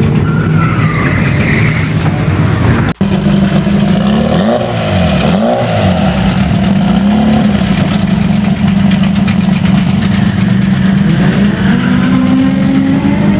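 Modified drag-race car engines running loud at idle, with a few quick revs that rise and fall about four to six seconds in. The sound cuts out for an instant about three seconds in.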